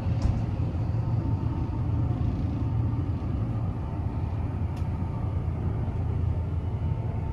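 Steady low hum and rumble of the Kintetsu Ise-Shima Liner limited express train standing in the station before departure.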